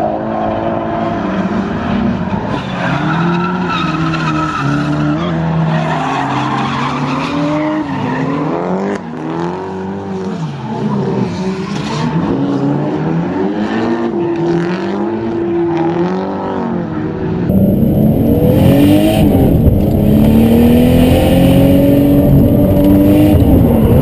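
Drift cars' engines revving up and down over and over as several cars slide through a corner together, with tyres skidding. About 17 seconds in, the sound turns louder and closer: a single drift car's engine revving hard, heard from inside the car.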